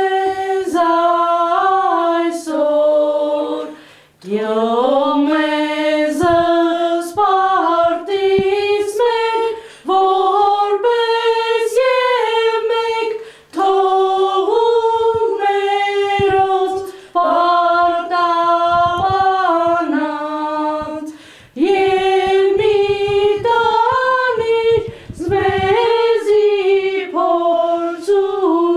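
Women singing a cappella in unison, a slow melody in long phrases with short breaks for breath between them.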